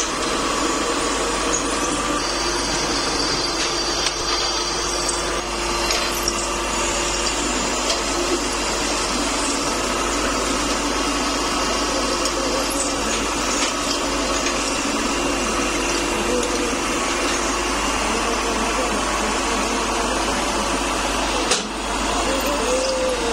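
Pillar drill press running, its bit cutting into a steel truck kingpin blank: a steady mechanical whir with metal-cutting noise and small clicks, and a single knock near the end.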